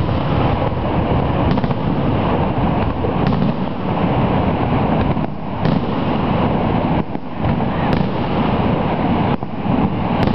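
Fireworks going off in a display, their bursts heard under a steady, loud rushing noise.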